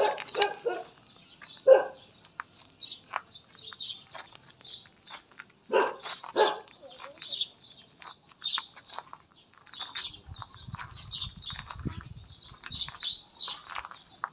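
A dog barking: a quick run of barks at the start, one more a little later, and two around six seconds in. Small birds chirp throughout.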